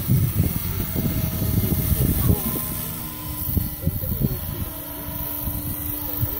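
Radio-controlled scale Alouette helicopter flying overhead, its motor and rotor giving a faint steady whine. Wind buffets the microphone in gusts and is the loudest thing heard.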